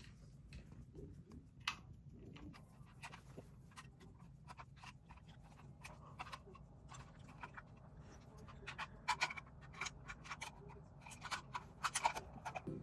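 Irregular light clicks and taps of small hard objects being handled, sparse at first and coming more often and louder in the last few seconds.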